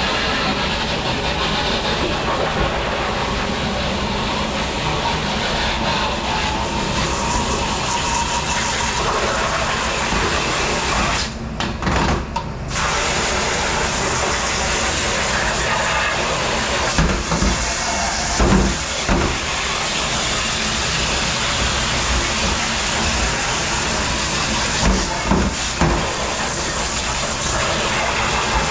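Steady rush of spraying water and running dish-pit machinery, with a few knocks of dishes about two-thirds of the way through and again near the end.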